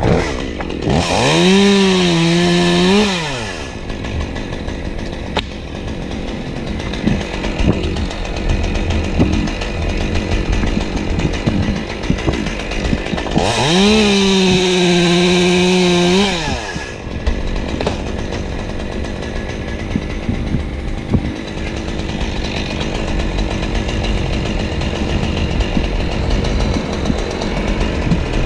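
Chainsaw idling, revved to full throttle twice for about two to three seconds each, with the pitch rising, holding steady, then dropping back to idle, as it cuts away two dead oak branches.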